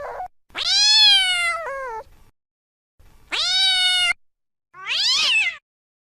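Domestic cat meowing: three separate meows with silence between them, the first long and falling off at the end, the last one higher and shorter.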